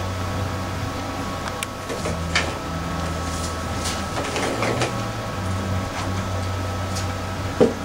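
Steady low electrical hum of running equipment, with a few small clicks and rustles of handling.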